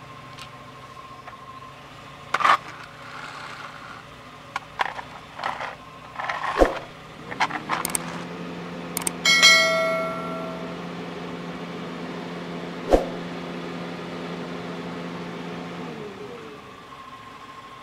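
Subscribe-button animation sound effect: a few sharp clicks, then a bell ding about nine seconds in that rings out for about a second and a half. Scattered clicks and knocks come before it. A steady low hum starts shortly before the ding and stops about sixteen seconds in.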